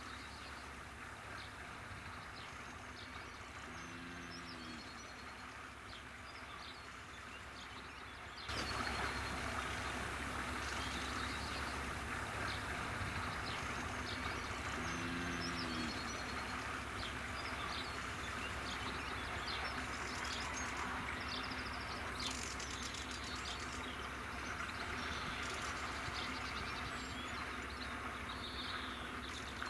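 Narrowboat engine running steadily as the boat passes, with birds chirping throughout; the engine noise steps up louder about eight seconds in.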